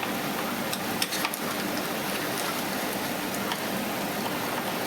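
Steady hiss with a few faint clicks about a second in and again near three and a half seconds: a small screwdriver working the screen-bezel screws out of a laptop lid.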